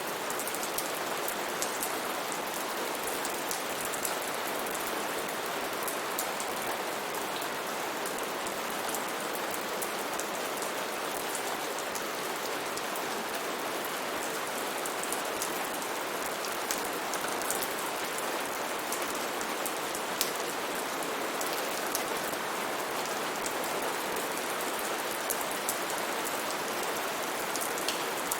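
Steady rain falling, a constant hiss with many individual drops ticking on a surface.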